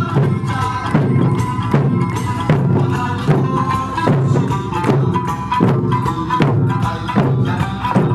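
Eisa drumming to Okinawan folk music: drums struck in a steady beat, about one stroke every 0.8 seconds, over a sustained melody.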